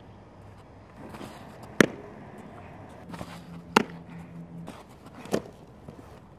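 Three sharp smacks about two seconds apart, the third softer: softballs thrown to a crouching catcher striking her catching gear.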